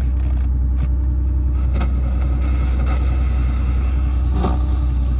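A 1973 Porsche 911T's air-cooled 2.4-litre flat-six idling steadily while still cold, with a low, even rumble. A light hiss comes up over it about two seconds in.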